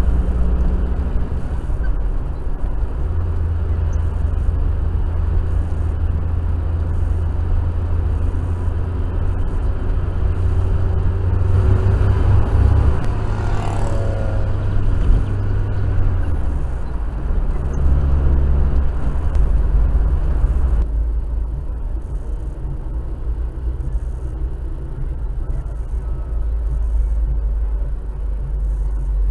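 A car's engine and tyres heard from inside the cabin while driving: a steady low engine drone over road noise. The drone's pitch steps up a few seconds in and drops back a little after halfway, as engine speed changes. The sound turns duller about two-thirds of the way through.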